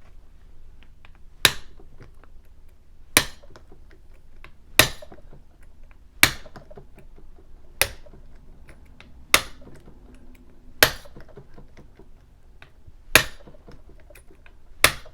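A mallet striking the head of a bump key seated in a Master Lock 5200 padlock, nine sharp taps about every second and a half with faint clicks between. This is lock bumping, knocking the pins to try to open a lock fitted with security pins.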